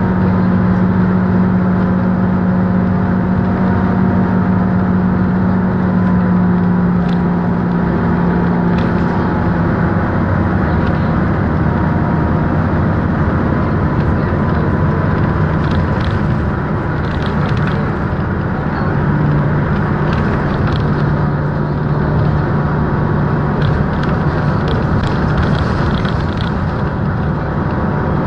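Interior of a city transit bus cruising at steady speed: a continuous engine drone with road and tyre noise. The engine hum drops to a lower pitch about a third of the way through. Light rattles and clicks come now and then.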